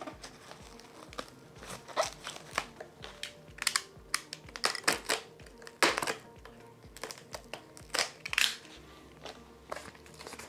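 Cardboard mailer being slit and torn open along its taped seam with a craft knife: scattered crinkling, scraping and sharp tearing sounds. Faint background music with a steady low beat runs underneath and stops about nine seconds in.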